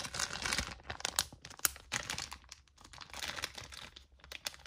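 Wax melt packaging crinkling and rustling as it is handled, in a run of quick, irregular clicks and rustles.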